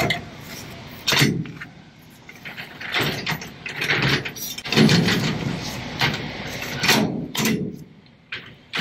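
Semi-trailer landing gear being cranked down by hand: the crank and its gearing turn in uneven bursts of metallic grinding and clunking.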